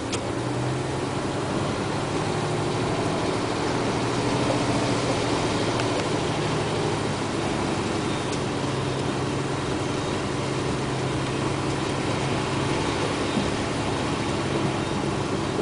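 Diesel engine of a loaded UD Quon 380 PS heavy dump truck running steadily.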